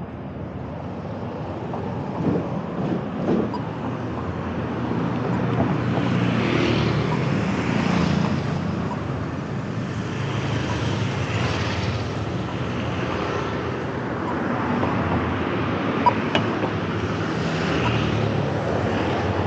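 Road traffic passing at street level: cars driving by with a steady hum of engines and tyre noise that swells and eases as vehicles come and go, and a single sharp click near the end.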